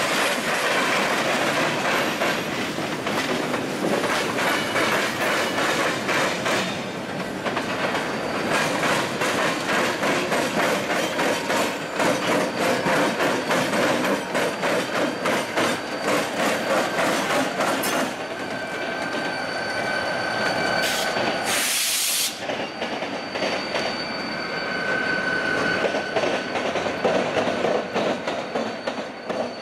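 Freight train rolling past, its wheels clicking over the rail joints and switches, with a thin steady wheel squeal in the second half as CSX diesel locomotives pass. A brief burst of hiss a little past the middle.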